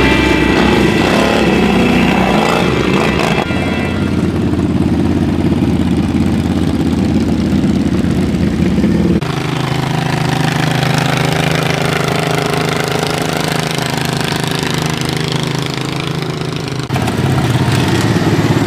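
Racing ride-on lawnmower engines running steadily, their sound changing abruptly twice.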